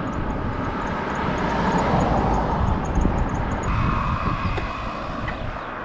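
Road traffic passing close by on a bridge: a vehicle's rush of engine and tyre noise swells about two seconds in and fades away, over the rumble of wind on the microphone of a moving bicycle.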